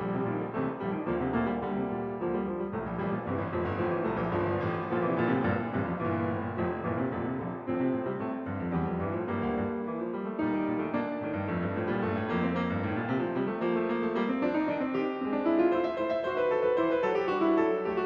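Background piano music, a steady run of notes throughout.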